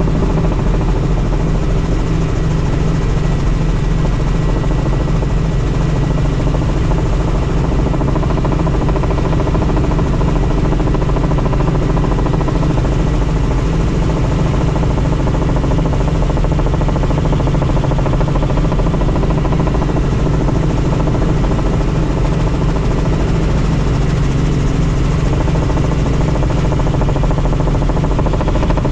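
Helicopter in flight: a steady, loud drone of rotor and engine, with a thin steady whine above it.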